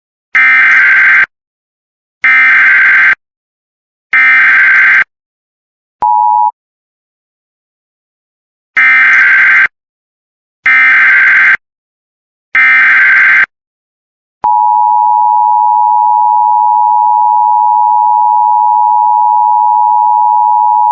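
Emergency Alert System header: two groups of three short, loud digital data bursts (the SAME header), with a brief steady tone between the groups. About 14 seconds in, the steady two-tone EAS attention signal begins and holds, opening a flash flood warning.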